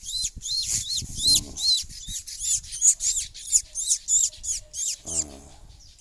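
Weaver-bird nestling calling with rapid, high, repeated chirps, about three to four a second.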